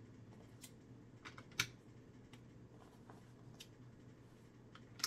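Small plastic Lego tiles clicking lightly as they are picked out of a loose pile and handled: a few scattered short clicks, the sharpest about a second and a half in, over a faint steady low hum.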